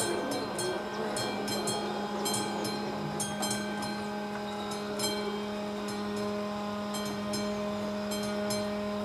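Level crossing's classic warning bell ringing at an AŽD 71 crossing signal: a quick, uneven run of sharp metallic strikes, a few a second, over a steady low hum. It is the warning that a train is due.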